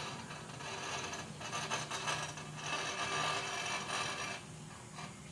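Rasping, ratcheting mechanical sound of hand tools working on metal fittings for about four seconds, then it stops.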